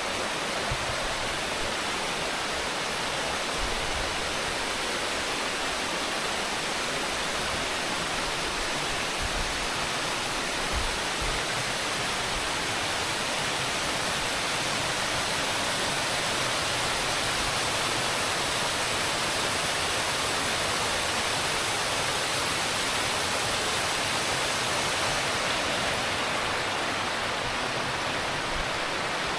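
Steady rush of flowing mountain water, an even hiss that does not change or break.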